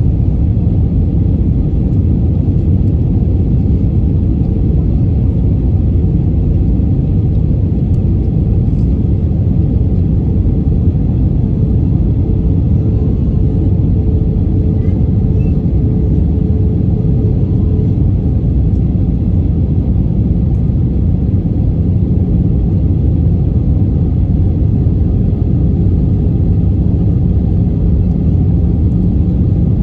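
Steady low rumble inside the cabin of an easyJet Airbus A320-family airliner on approach: engine and airflow noise heard from a window seat over the wing.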